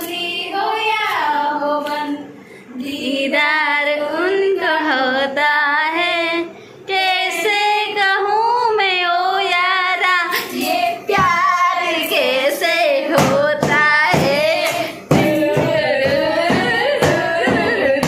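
Two women singing a song together without instruments, voices sliding through the melody. In the second half, sharp regular claps or snaps keep time under the singing.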